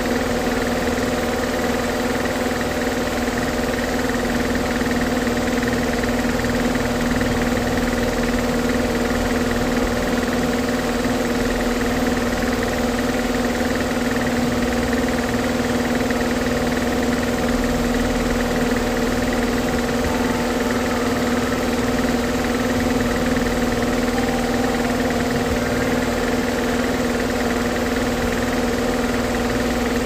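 A machine running with a steady, unchanging hum made of several held tones.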